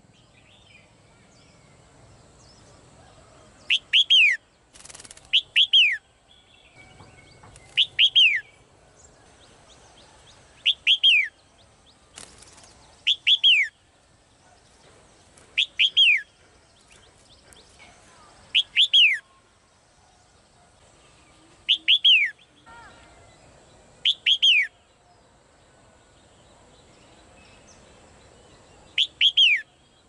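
Caged female red-whiskered bulbul calling: about ten loud calls, each a quick run of two or three sharply falling whistled notes, repeated every two to three seconds, with a longer pause near the end.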